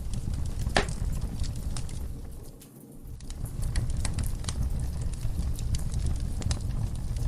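Wood fire in a fireplace crackling and popping, with sharp irregular snaps over a low rumble of the flames. The sound briefly fades almost away about two and a half seconds in, then comes back.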